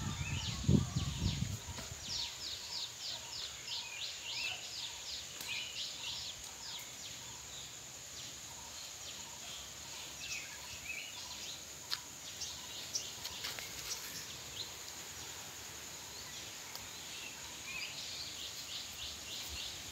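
Outdoor ambience: small birds chirping in quick runs of short, high, falling notes, over a steady high-pitched drone. A few low thumps on the microphone in the first second or two.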